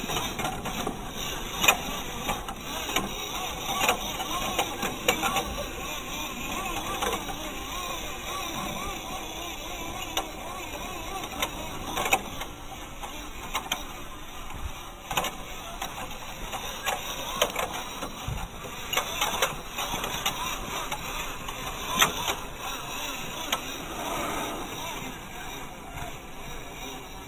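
WPL B-1 1:16 RC truck's small electric motor and gearbox whirring as it crawls over loose dirt and rocks, with tyres crunching and frequent sharp clicks and knocks from stones and the chassis.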